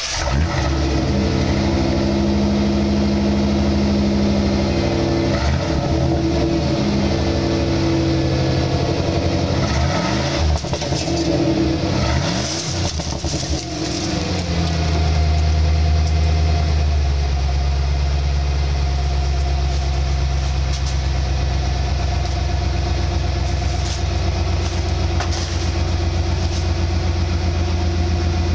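1994 Ford F-150 engine running at a fast idle just after a cold start at 19°F, heard right at the tailpipe. The engine speed swings up and down briefly about ten to thirteen seconds in, then settles into a lower, steady idle.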